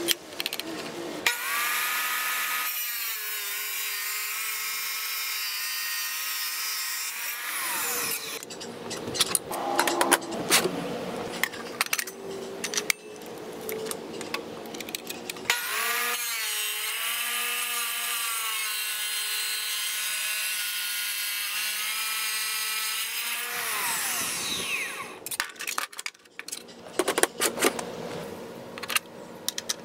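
A 10-inch wet tile saw's motor whining steadily as its diamond blade cuts tile, twice, each run winding down with a falling pitch as the saw is switched off. Between the cuts and after them come irregular metallic clicks and clanks as a wrench loosens the arbor nut and a blade is swapped.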